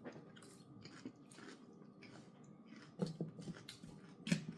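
Close-up eating sounds: chewing and biting food, with small scattered clicks and two louder bursts of mouth noise about three seconds in and near the end.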